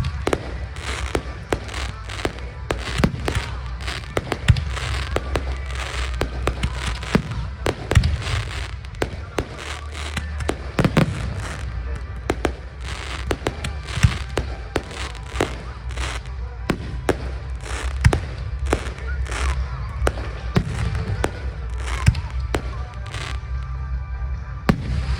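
Aerial fireworks going off in a dense barrage: sharp bangs and crackles several a second, over a steady low rumble.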